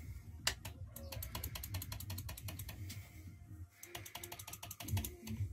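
Rapid ratchet-like mechanical clicking from a cordless brushless angle grinder being handled, in two runs with a short pause in the middle.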